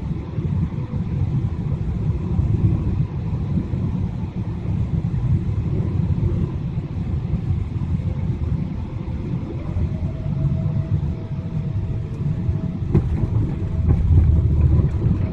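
Jet airliner cabin noise on final approach to landing: a steady low rumble of the engines and rushing air heard inside the cabin. A faint steady whine joins about two-thirds of the way in, and the noise grows a little louder near the end as the plane nears the runway.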